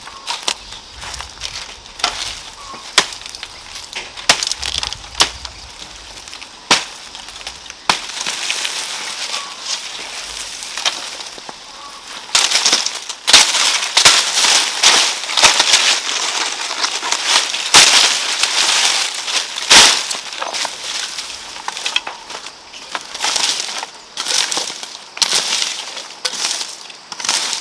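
Rice stalks being cut and handled by hand: repeated crisp snaps and dry rustling, busiest and loudest in the middle stretch.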